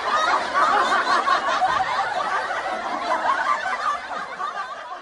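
Laughter that goes on without a break and fades toward the end.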